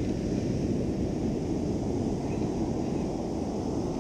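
Wind buffeting the microphone over the steady wash of ocean surf, a dense low rumble with no distinct strikes.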